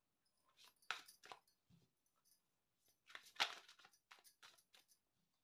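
A deck of tarot cards shuffled by hand: faint, short rustles and taps in a few clusters, the loudest about three and a half seconds in.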